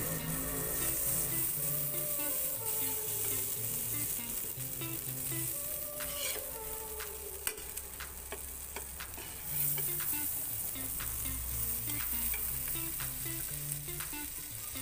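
A cabbage, carrot and egg patty and a slice of ham frying in melted butter in a nonstick pan, a steady sizzle, with a few sharp clicks.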